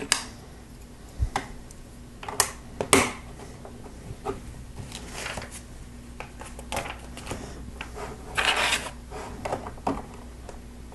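Small plastic Lego pieces clicking and clacking in irregular, scattered strokes, with a longer rattling clatter about eight and a half seconds in.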